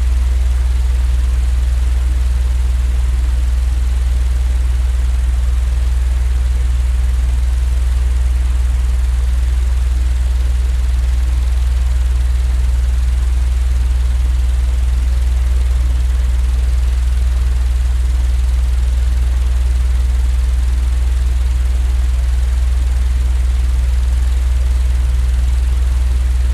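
Electric fan running steadily: a constant low hum with a faint hiss above it, unchanging throughout.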